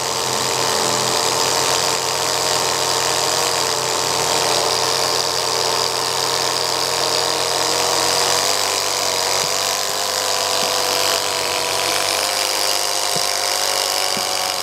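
Small electric motor whining steadily as it spins a Lego Technic inline-four engine model, its plastic crankshaft and pistons whirring.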